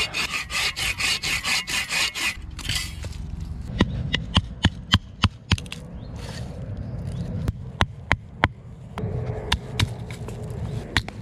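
A block of wood being worked by hand with carving tools: about two seconds of fast, even rasping strokes, then a string of sharp, irregular clicks as blade cuts bite into the wood.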